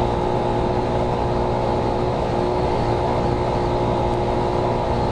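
Honda Monkey 12V (A-Z50J) 49 cc single-cylinder four-stroke engine running at a steady cruising speed, with a steady hiss of wind and road noise under it.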